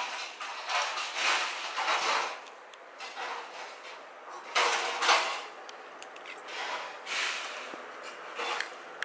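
Irregular bursts of rustling and rubbing right at the microphone, the loudest about five seconds in.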